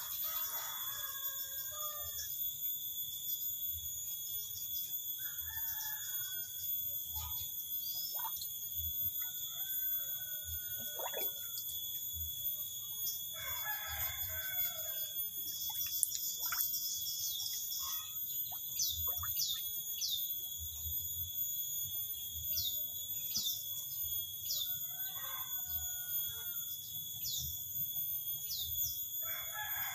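Birds calling: separate crowing calls of about a second each, several seconds apart, over a steady high-pitched whine. From about halfway through, a bird gives quick falling chirps again and again.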